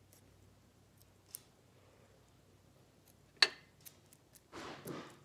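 Scissors snipping at the rubber neck of a slime-filled balloon: a few faint clicks, one sharp snip about three and a half seconds in, then a short rustle of the blades and rubber near the end.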